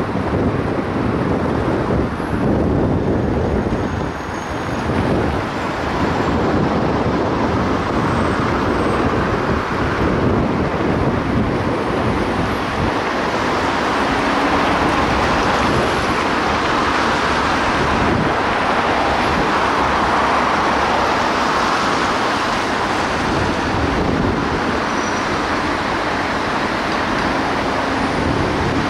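Steady road and traffic noise from a car moving in dense city traffic: tyre and engine noise of the surrounding cars blending into a continuous rush.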